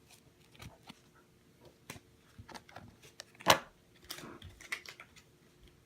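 Baseball cards and packs being handled on a table: scattered light clicks and short rustles, with one sharper tap about three and a half seconds in.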